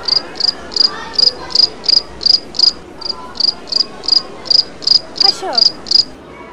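Cricket chirping, laid over the picture as a sound effect: short high chirps evenly repeated about three times a second, stopping shortly before the end. It is the familiar 'crickets' gag for a bored, dead-quiet moment.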